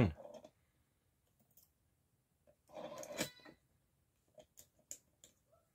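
Small metallic clicks and a clack from a Master Lock M50 padlock being handled with a lock-picking rake: one louder clatter about three seconds in, then a few light clicks.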